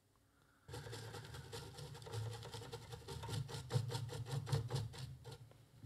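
Fast, irregular scratchy rubbing on a circuit board as the desoldered battery-connector pads are scrubbed clean. It starts about half a second in and dies away near the end.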